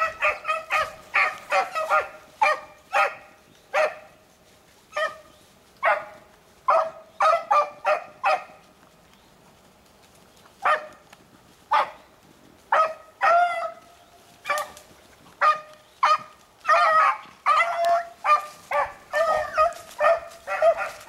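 Beagles baying on a rabbit's scent trail: a run of short, repeated hound calls from several dogs. The calls break off for about two seconds midway, then start again and come thick and overlapping near the end.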